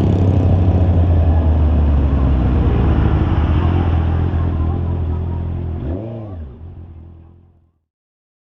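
A 2021 Honda CB650R's inline-four engine running under way, a steady drone that dies away over the last few seconds to silence. About six seconds in the pitch briefly rises and falls.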